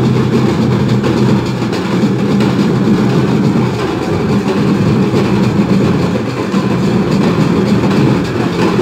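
Loud, dense din of a packed crowd, heard as a steady low rumble without clear voices or a beat.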